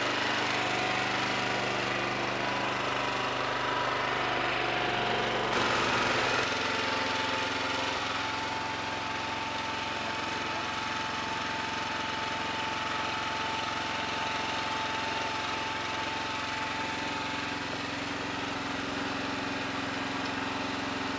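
Small Honda gasoline engine on a tiny-house moving machine running steadily, its sound shifting abruptly about six seconds in.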